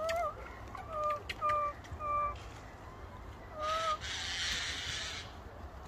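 Baby macaque giving five short, clear coo calls, each about a quarter-second long and spaced about a second apart; the first one rises slightly. About four seconds in, a rushing hiss lasts about a second and a half.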